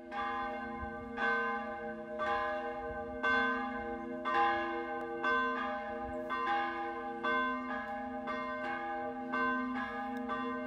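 Church bell of Söndrum church ringing, a stroke about every second, each stroke ringing on into the next. This is the Saturday-evening helgmål ringing that marks the start of the holy day.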